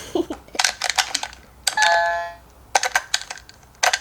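Sound effect of game controller buttons being pressed: runs of rapid, sharp plastic clicks, broken by a short electronic chime about two seconds in.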